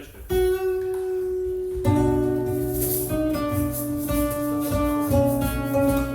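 Improvised instrumental background music of held, pitched notes; it comes in about a third of a second in and grows fuller, with more notes over a low pulse, about two seconds in.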